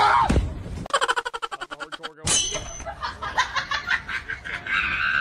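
Comedy sound effects: a tone sliding steeply down in pitch at the start, a fast clicking rattle, then a bright ding about two seconds in, followed by quick irregular stuttering sounds.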